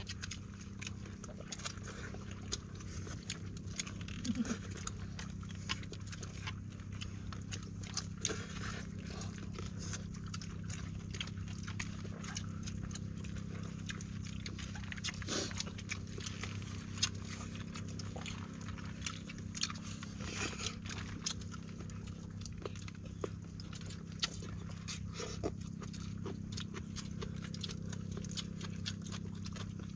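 People eating with their hands: chewing, lip smacks and small scattered clicks, over a steady low background rumble.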